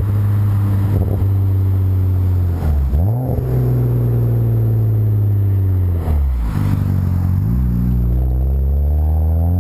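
BMW 135i's turbocharged straight-six heard at the tailpipes through a catless Berk full sport exhaust, running loud under way. Its pitch dips sharply and recovers twice, about three and six seconds in, then climbs steadily near the end as the engine revs up.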